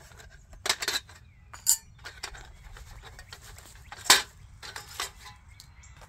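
Metal crossbars of a folding camping table clinking and clicking as they are pulled off and handled: scattered sharp metallic taps, a few together just under a second in and the sharpest about four seconds in.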